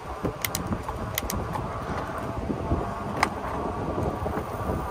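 Wind rushing over the microphone of a moving e-bike, with a faint steady whine and a few sharp clicks about half a second, one second and three seconds in.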